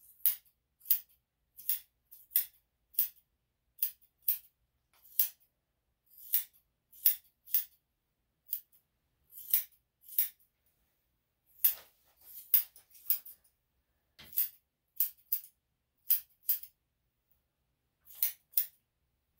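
Grooming scissors snipping dog fur on a paw: short, sharp snips, irregularly about one to two a second, with a couple of brief pauses.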